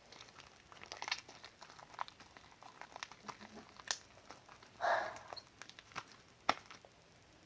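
Sticky, under-activated homemade slime being kneaded and pulled by hand: irregular small sticky pops and crackles as it peels off the fingers, with one brief louder burst about five seconds in.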